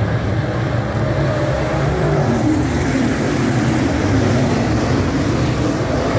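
A field of dirt late model race cars running at speed, their V8 engines making a loud, continuous din, with one engine's note rising as a car passes close by about two seconds in.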